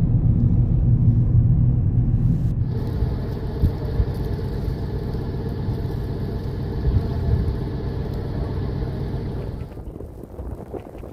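Motor vehicle engine running with a steady low rumble. The sound changes abruptly between clips about two and a half seconds in and drops off near the end.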